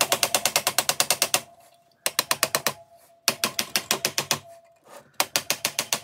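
Rubber mallet tapping rapidly on an electric motor's housing, about ten quick blows a second, in four short runs with brief pauses between, to knock the motor's end cover loose for disassembly. A faint ring is left in each pause.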